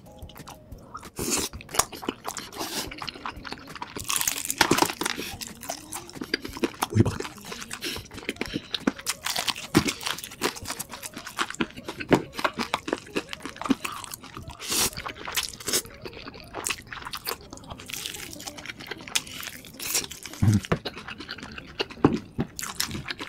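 A person biting into and chewing crispy fried chicken, with dense, irregular crunches and a few louder bites standing out.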